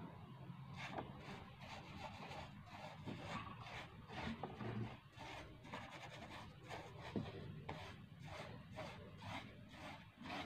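Paintbrush rubbing paint onto a wooden stair railing in repeated short strokes, faint.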